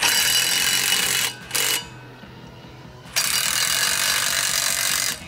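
Cordless drill spinning a 9/16 socket on an extension, run down on the locking nuts of steel U-bolts. It runs in three bursts: about a second and a half, a brief blip, then about two seconds more.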